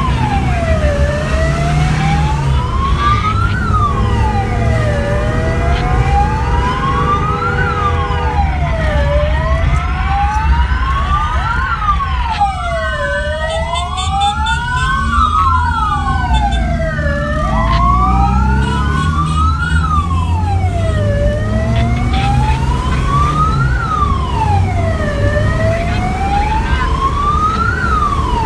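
Emergency vehicle sirens wailing, rising and falling about every four seconds, over the low rumble of a vehicle's engine and road noise. A second siren overlaps with its own sweeps for a few seconds in the middle, and a steady horn-like tone is held for about four seconds near the start.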